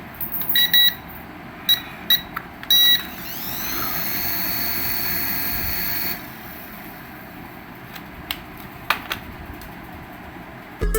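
Remote-control toy: a few short electronic beeps, then a small electric motor whirs up in a rising whine, runs steadily for about three seconds and stops, followed by a few light clicks.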